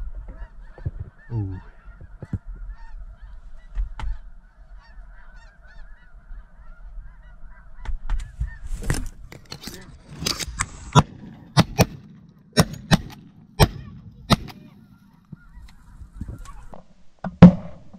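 Faint, continuous chatter of a flock of geese calling. About nine seconds in, a run of sharp knocks and clicks starts, louder than the calling, and goes on for several seconds.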